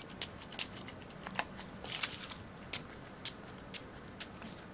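Faint, irregular small clicks and taps of a plastic alcohol bottle and fingers handling a power bank's plastic case, with a brief hiss about two seconds in.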